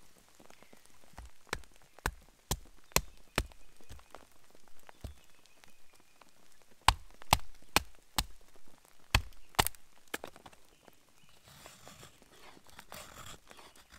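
Wooden baton striking the spine of a knife to split a stick for kindling: about a dozen sharp wooden knocks in two runs. Near the end, the knife shaving curls off the split stick with a rough scraping sound, carving a feather stick.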